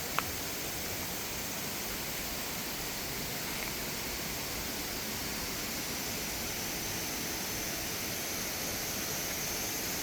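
Mountain-valley stream rushing in a steady, even wash of water noise, with one short click just after the start.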